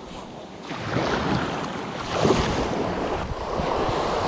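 Small waves washing up on the sand, with wind buffeting the microphone; the noise swells about two seconds in.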